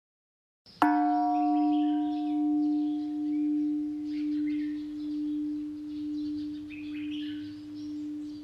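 A singing bowl struck once about a second in, its deep tone ringing on and fading slowly with a gentle wavering, while the higher overtones die away within a few seconds. Faint bird chirps sound behind it.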